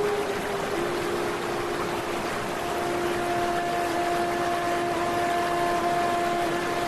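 Steady rushing water noise from the flooded Ganga, with a steady humming tone over it that drops slightly in pitch about a second in; a second, higher tone joins a few seconds in.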